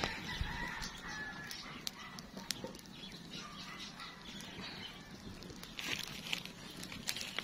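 Faint outdoor ambience with distant bird calls and a few small clicks from the phone being handled.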